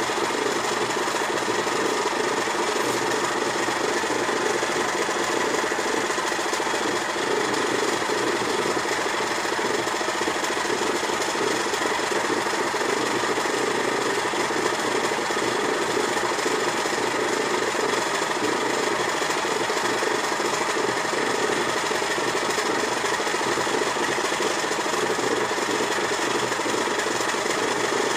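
A vintage Kenwood Chef stand mixer's electric motor and gearing running steadily, with no change in speed or level.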